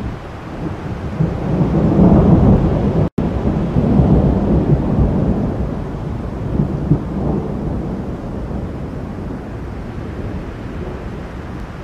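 Rolling thunder rumbling, swelling about two seconds in and again around four seconds, then slowly dying away. The sound cuts out for a moment about three seconds in.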